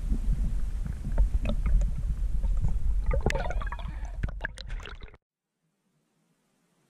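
Underwater water noise picked up by a camera in its housing: a low rumble of moving water with scattered clicks and crackles. It cuts off suddenly about five seconds in.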